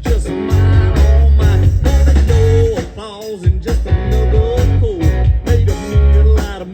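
Live country band playing an instrumental break: a lead guitar plays bending, wavering notes over bass and drums.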